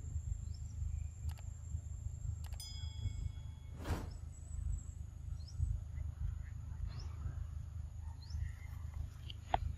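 Forest ambience: a steady high insect drone with short rising bird-like chirps every second or so over a low rumble. A brief chime rings out about two and a half seconds in.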